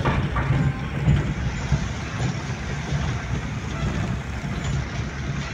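A motor vehicle's engine running steadily, a continuous low rumble.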